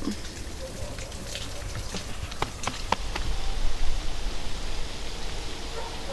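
Outdoor ambience: a steady hiss with scattered light ticks, then from about halfway a low rumble of wind buffeting the microphone.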